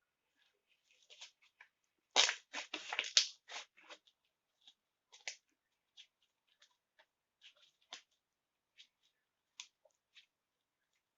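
Slime being squeezed and stretched by hand, giving off short wet clicks and pops. There is a dense cluster of them about two to three seconds in, then scattered single pops.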